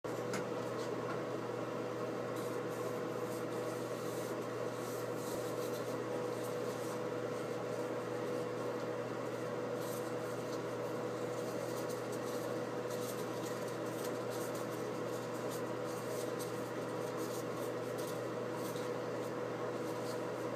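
Steady machine hum with a constant mid-pitched tone, unchanging throughout, with faint intermittent rustling on top.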